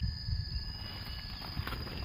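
Irregular low rumbling and rustling noise that starts abruptly, with a few faint clicks, over a steady high-pitched insect drone.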